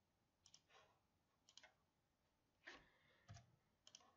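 Faint computer mouse clicks, five or six of them spread through, some in quick pairs, over near silence.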